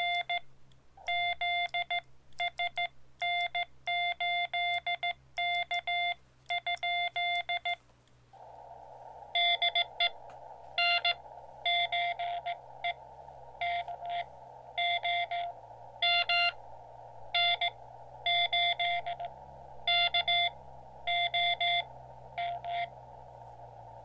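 Morse code from a Xiegu X-6100 transceiver's speaker, a single pitched tone keyed in dots and dashes. For the first eight seconds or so it is the operator's own sending sidetone, clean with silent gaps. After that a station's CW reply comes through over steady band hiss until it stops near the end.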